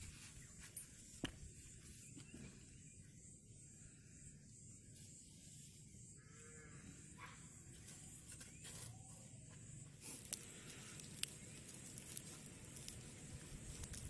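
Near silence: faint outdoor background with a few sharp clicks, the clearest about a second in and two more late on, and a faint short call about six seconds in.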